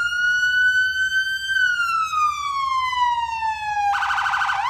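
Police car siren wailing: one long tone that climbs slightly, then sinks slowly, and switches to a fast warble near the end.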